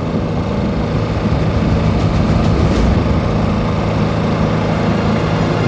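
A boat's motor running steadily at low speed, a continuous low engine hum, as the boat creeps across the lake on a sonar scan.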